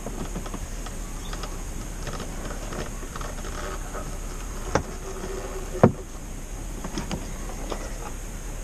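A wooden cockpit locker lid and its hinge being handled and pressed into place on a fibreglass cockpit seat: scattered light clicks and taps, with two sharper knocks about five and six seconds in.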